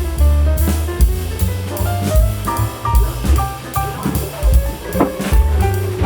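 Jazzy background music with drum kit, bass and saxophone-like melody at a steady beat.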